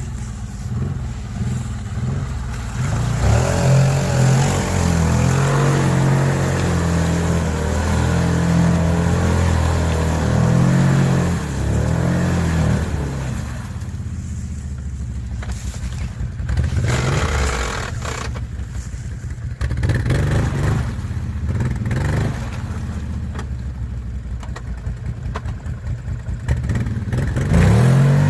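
ATV engine running and revving, its pitch rising and falling repeatedly for several seconds, then settling to a lower, steadier run with a few shorter revs and a louder rev near the end.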